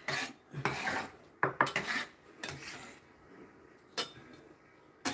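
A chef's knife scraping and tapping against a small glass bowl as chopped green herbs are cleared out of it. It makes a run of short scrapes, then two sharp clicks near the end.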